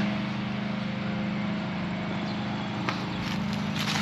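A steady, even machine hum, like a motor running, with a couple of short clicks near the end.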